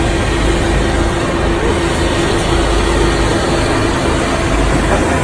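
Loud, steady engine noise with a constant humming tone in a racing team's pit garage.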